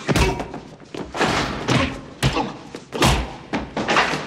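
Fistfight: a rapid series of about six heavy punches and body blows landing, each a loud thud or slam.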